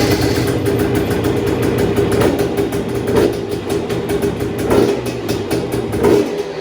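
Husqvarna TE 250i two-stroke single-cylinder dirt bike engine idling, with four short, light throttle blips. It is an exhaust sound test of the bike's silencer.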